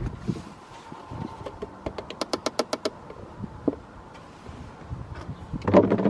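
A hand ratchet clicking in a quick run of about ten clicks about two seconds in, among scattered knocks and clunks of tools on metal; a louder clunk comes near the end.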